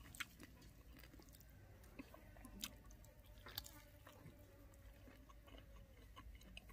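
Faint chewing as a person eats rice and fish curry by hand, with scattered small mouth clicks over a quiet background.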